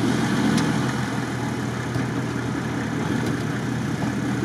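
Engine of a modified Lada Niva off-roader idling steadily.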